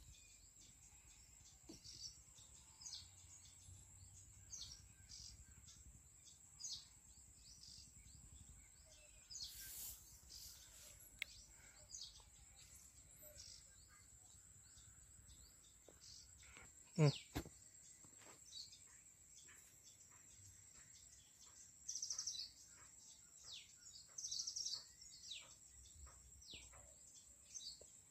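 Wild birds chirping on and off with short, high calls over a faint steady high whine, with two louder flurries of rapid chirps near the end. A little past halfway, one brief louder sound sweeps steeply down in pitch.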